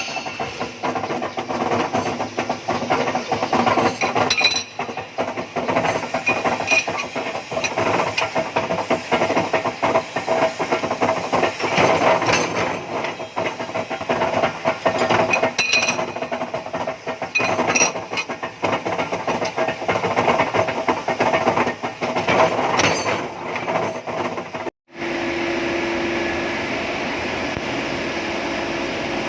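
Metalworking machinery running with a rough, rattling noise and many irregular metallic clanks and clicks; after a sudden break near the end, a steady even machine hum takes over.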